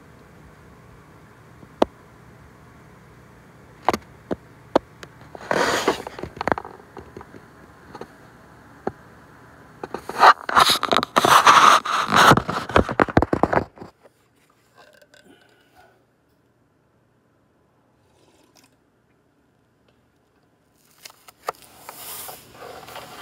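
A few sharp clicks and two bursts of scraping and rustling close to the microphone, the second one the loudest. The sound cuts to dead silence for several seconds about two thirds through, then rustling starts again near the end.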